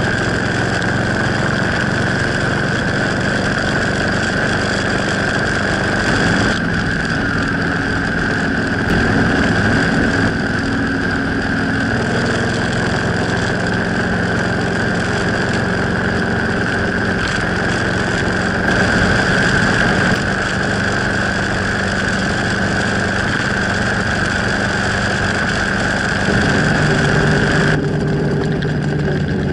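Suzuki Intruder VL1500 V-twin engine running at steady cruising speed, with wind rushing over the microphone. The engine note shifts a few times.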